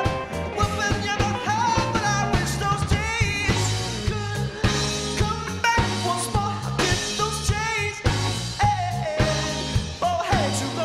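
Live rock band playing, with electric guitar, keyboards, bass guitar and drums over a steady drum beat.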